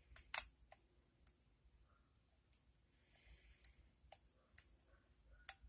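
Faint, irregular small metallic clicks, about ten of them, with brief soft scraping: a hook pick working the pins of a pin-tumbler lock under tension.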